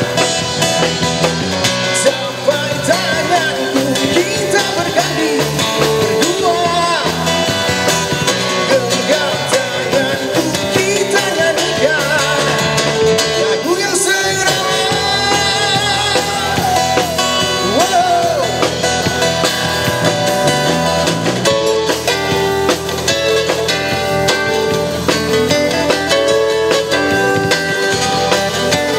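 Live band playing a rock song: a man sings into an amplified microphone over electric bass, drums and guitar. Toward the end the singing gives way to a guitar playing the lead.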